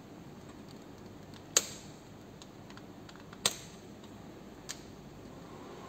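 Sharp clicks of switches being turned on the front panel of a main power distribution drawer: two loud clicks about two seconds apart, then a fainter one, with a few light ticks between.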